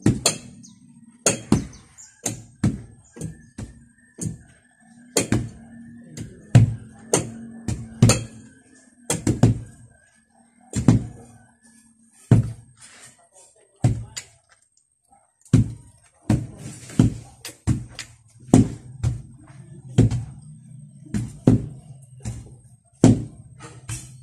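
Wooden hand tampers thudding down on loose soil to compact a dirt floor: dull, irregular strokes about one or two a second, with a short pause about halfway through.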